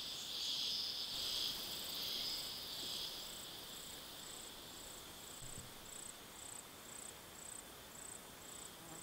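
A chorus of insects in the bush: a steady high buzz that fades away about three seconds in, with a faint high chirp repeating about two or three times a second throughout.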